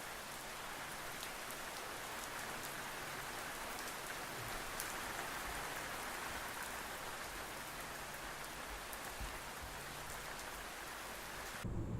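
Steady rain: an even hiss with faint scattered ticks of drops, giving way to speech near the end.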